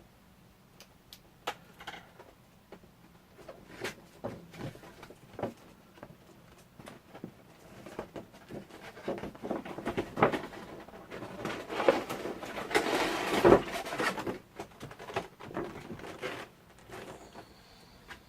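Hands opening a figure's box and packaging: scattered clicks and taps, then a louder stretch of rustling and crinkling midway with a sharp knock at its loudest point, then a few more taps.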